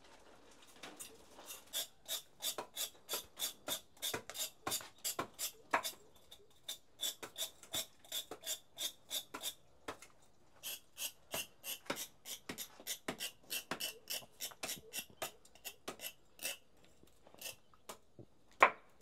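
Knife blade scraping the charred surface off a piece of fire-grilled dried buffalo hide on a chopping block, in quick, regular rasping strokes about three a second. The strokes pause briefly about ten seconds in, and a sharper knock comes near the end.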